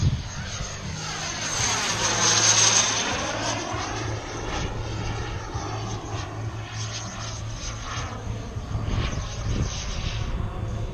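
Elite Aerosports Havoc radio-controlled aerobatic airplane's engine and propeller droning in flight. It passes close about two to three seconds in with a swooshing sweep in pitch at its loudest, then drones on farther off.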